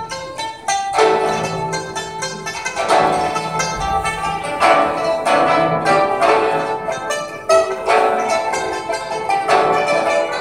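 Chinese traditional instrumental trio playing: pipa and guzheng plucked and yangqin struck with hammers, in a dense stream of quick notes.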